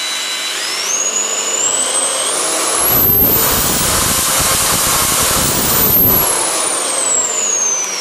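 Low-speed variable-speed polisher (700–3000 rpm) with a sanding pad running, its motor whine rising in steps as the speed is turned up to the top setting. At top speed a rough rushing rumble joins in for about three seconds, then the whine glides smoothly back down in pitch near the end.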